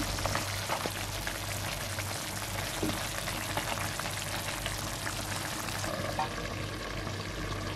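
Chicken pieces simmering in a shallow pool of turmeric-yellow water in a frying pan, bubbling and sizzling steadily with small crackles.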